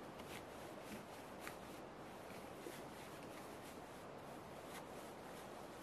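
Faint scratchy rustling with scattered light ticks, from a hiker's hands working at his boots and clothing, over a faint steady hiss.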